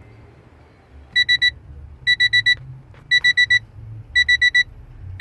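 An electronic alarm beeping in quick groups of four high beeps, one group about every second, starting about a second in.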